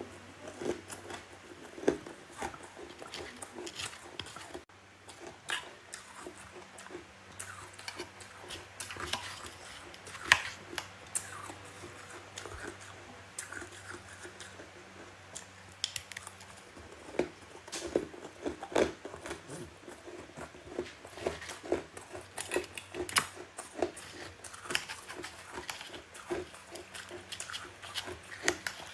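Close-miked chewing and crunching of powdery freezer frost in the mouth: irregular soft crunches and bites. A low steady hum runs underneath.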